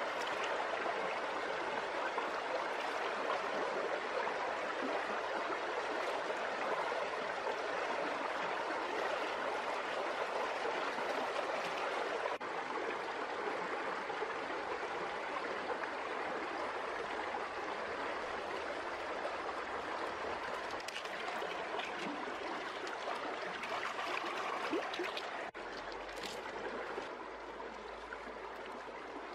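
Shallow forest stream running over rocks, a steady rush of water, a little quieter in the last few seconds.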